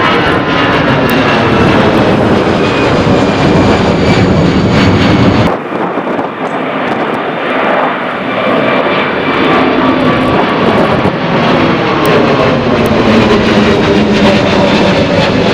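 Jet airliners taking off at high thrust close by: first an Airbus A319's CFM56 turbofans, then, after an abrupt cut about five seconds in, another departing jet whose engine tones fall in pitch as it passes.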